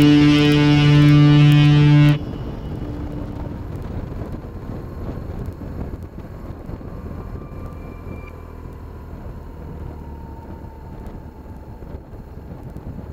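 Guitar rock music cuts off abruptly about two seconds in. It gives way to wind rushing over the microphone and a BMW motorcycle's engine running at road speed.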